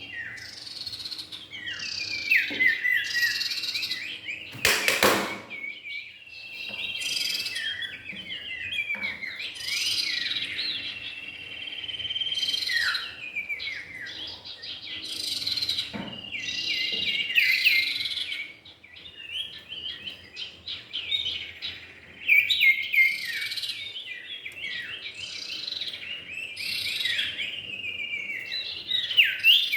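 Male and female common ioras (cipow) calling and singing without pause, rapid chattering trills mixed with high whistled notes, played as a lure call to draw ioras in. A brief knock about five seconds in.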